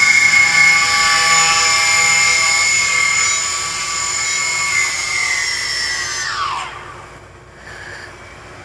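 Brushless motors of a HobbyKing Nova quadcopter whining steadily at speed, then winding down in pitch and stopping about six and a half seconds in.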